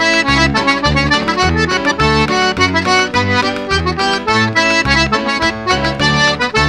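Mélodie diatonic button accordion in D playing a fast traditional Québécois dance tune: a quick stream of melody notes over steadily pulsing bass chords.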